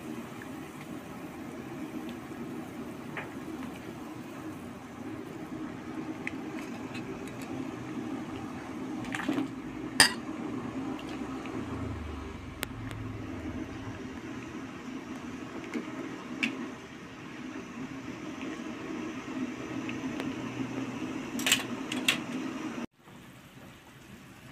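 A metal utensil clinks against a wok of boiling chicken and chicken-feet broth about four times, the loudest about ten seconds in, over a steady low background noise. The steady noise drops out suddenly near the end.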